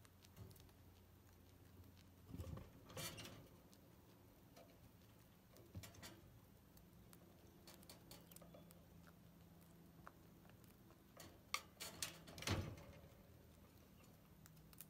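Chinchilla gnawing a thin apple wood stick: faint, scattered crunching clicks, with louder bursts about three seconds in and again near the end.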